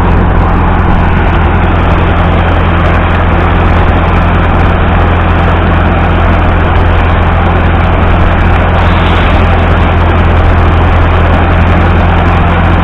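An engine running steadily at constant speed, with a strong deep hum and no change in pitch.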